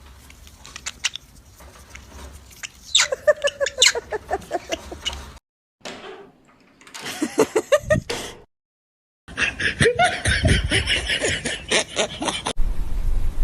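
Laughter in several short bouts of rapid, repeated ha-ha pulses that drop in pitch, broken up by abrupt cuts and silent gaps.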